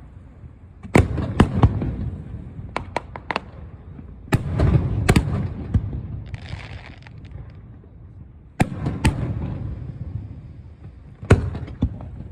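Aerial firework shells bursting in a series of sharp bangs at irregular intervals, some in quick clusters of two or three, each followed by a low rumbling echo.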